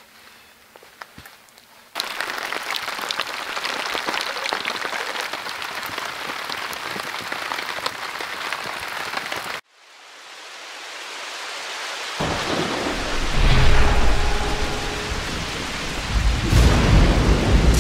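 Heavy rain falling steadily, starting suddenly a couple of seconds in and cutting off abruptly after about eight seconds. A rush of rain then swells back up, joined by rolling thunder rumbling low and heavy until the end.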